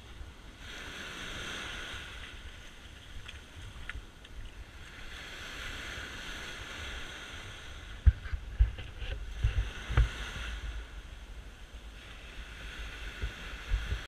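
Small waves breaking and washing up the sand in a steady, swelling hiss. Between about eight and ten seconds in, a few loud low thumps on the microphone break in over it.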